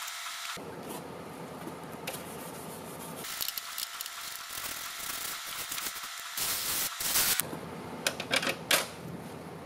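A handheld brush scrubbing a foam-covered car wheel cover: scratchy rubbing with irregular clicks and knocks as the brush works over the spokes, thickest in the second half.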